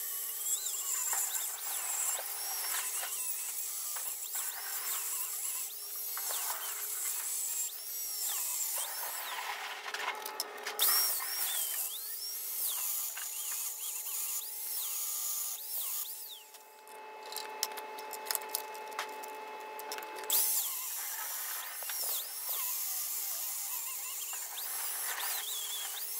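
Handheld angle grinder grinding the edges of a plasma-cut half-inch steel flange, its pitch dipping and recovering as it bites into the metal. It eases off the work for a few seconds about two-thirds of the way through, then grinds on.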